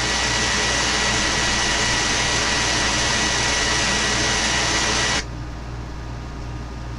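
Radio receiver's speaker giving loud static hiss with a thin steady whistle through it, cut off suddenly about five seconds in, leaving a quieter low hum.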